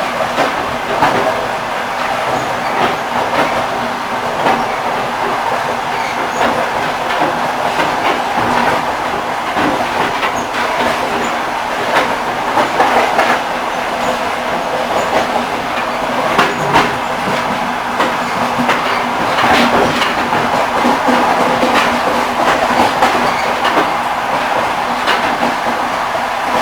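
Railway carriage wheels clattering along the track: a steady rumble with frequent sharp clicks and knocks of the wheels over the rails.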